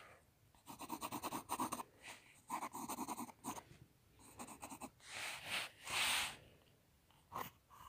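Pencil scratching on sketchbook paper in quick back-and-forth sketching strokes, coming in short bursts with pauses between.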